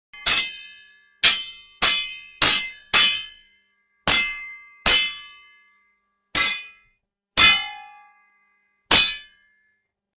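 Sword blades clashing, metal on metal: ten separate ringing clangs at uneven intervals, some in quick pairs, each dying away in under a second.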